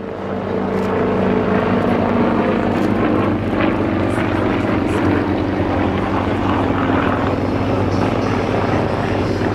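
Single-engine propeller aerobatic plane with a nine-cylinder radial engine running steadily at power, a loud drone that swells over the first second and then holds even.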